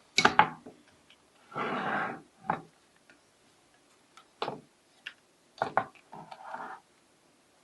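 Electric vacuum desoldering gun at work on a circuit board: sharp clicks and taps, with a short hissing burst of its vacuum pump sucking up solder about one and a half seconds in and a fainter one near the end.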